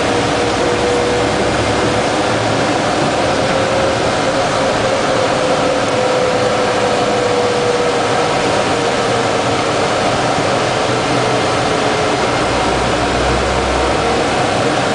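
Patrol vehicle's engine and road noise heard from on board while driving, steady and loud, with a whine that slowly drops in pitch and fades out after about twelve seconds.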